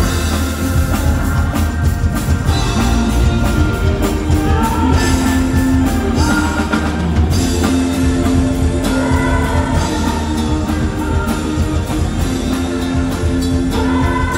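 Live rock band playing loudly through a PA: singing over electric bass, guitar, keyboard and drums.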